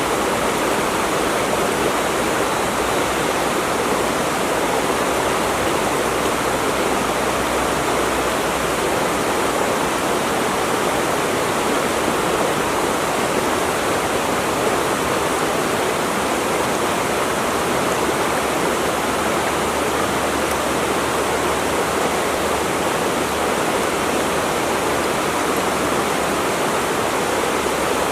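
Rushing water running steadily, an even, unbroken wash of sound with no change in level.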